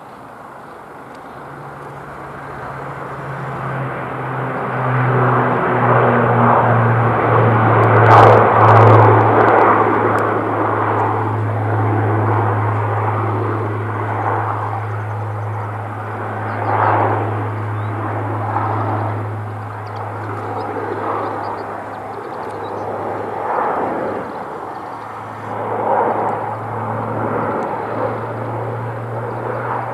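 Airbus A350's two Rolls-Royce Trent XWB jet engines as the airliner comes in to land. The jet noise swells to its loudest about eight seconds in, then holds as a steady rumble over a low drone, with a few brief louder surges later on.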